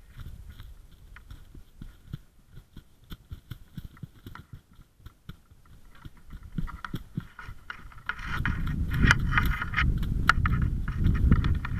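Wild turkey wings beating and thrashing through grass close by: a bow-shot bird flapping in its death throes, a dense run of rustling thumps and clicks that grows much louder about eight seconds in.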